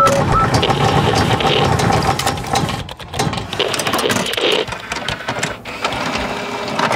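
Animated logo intro sound effects: a dense run of rapid mechanical-sounding clicks and whirring, with short electronic blips at the very start.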